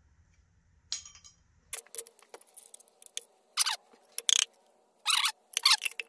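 Sharp metallic clinks and scrapes of a tool and loose metal parts as a connecting rod's bearing shells are worked out of the bottom end of a Nissan VQ35DE V6. There is a single clink about a second in, then a quick irregular run of clinks and scrapes from about two seconds in.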